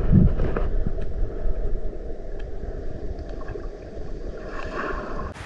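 Muffled underwater rumble and sloshing of creek-pool water, heard through a submerged phone's microphone. It surges loudly twice near the start, then settles into a steadier low rumble.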